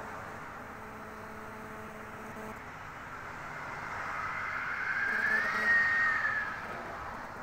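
Prussian P 8 steam locomotive 38 2267 heard from a distance, working slowly up a grade with its train under heavy smoke, a steady rumble and hiss. About four seconds in a louder sound swells with a high whine that rises, holds and fades before the end.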